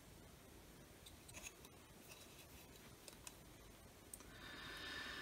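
Near silence, with a few faint clicks and rubs as a circuit board and its attached wires are handled. A faint steady hiss comes in near the end.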